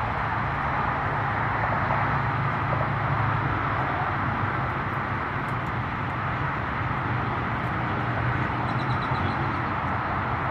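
Steady outdoor background noise, a constant rush with a low hum underneath; a short run of faint, high chirps about nine seconds in.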